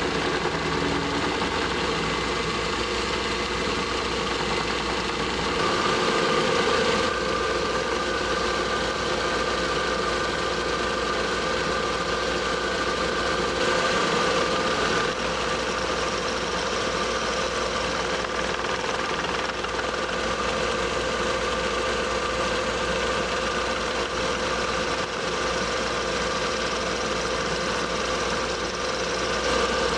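Metal lathe running with an end mill held in the headstock, milling cuts across a metal workpiece: a steady motor hum and cutting whine whose tone shifts a few times as the cut changes.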